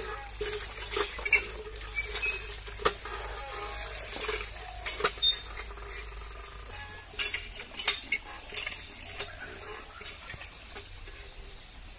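Water from a cast-iron hand pump splashing over cut fish pieces being rinsed by hand in a plastic colander, with irregular clinks and knocks as the pump handle is worked. The knocks are thickest in the first two-thirds and thin out near the end.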